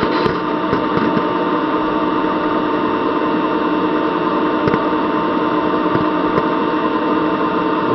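Small machine tool's spindle motor running steadily with an even hum, while a 1/4-20 tap hobs a worm gear into a nylon blank on a 15-thou-deep pass.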